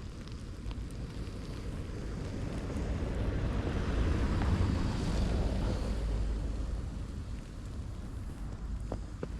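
A vehicle passing on a snowy road, its tyre and engine noise swelling and fading over a few seconds, over wind buffeting the microphone.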